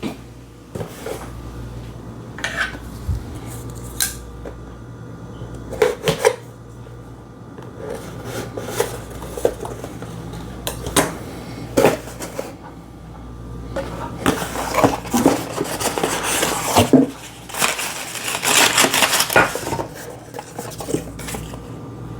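Unboxing a metal camera cage: scattered clicks and light metallic clinks as the box and parts are handled, with a longer stretch of rustling packaging in the second half.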